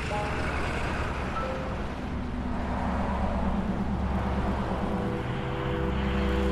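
Road traffic: cars running at an intersection, a steady rumble with an engine hum that comes in about two seconds in and grows stronger in the second half.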